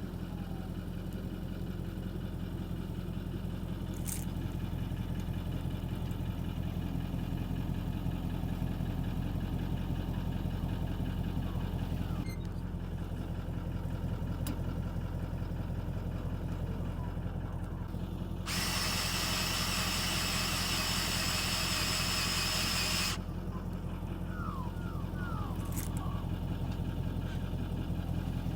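Tow car's engine idling steadily. Past the middle, a loud even hiss comes in for about five seconds and cuts off suddenly.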